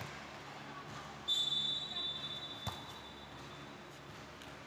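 Referee's whistle: one long blast, starting about a second in and fading away over roughly three seconds. Partway through it comes a single sharp hit of a volleyball.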